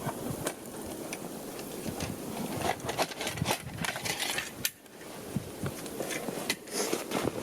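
Footsteps crunching irregularly through fresh snow, with rustling, a little wind on the microphone and a brief lull a little before the middle.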